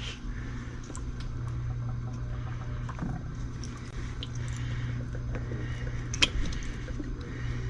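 Scattered light clicks of transmission parts being handled, with one sharper click about six seconds in, over a steady low hum.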